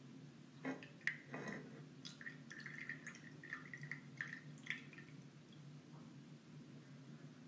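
Lemon juice trickling and dripping from the spout of a ceramic citrus reamer into a small glass: a couple of clicks about a second in, then a run of small drips that stops about five seconds in, over a faint low hum.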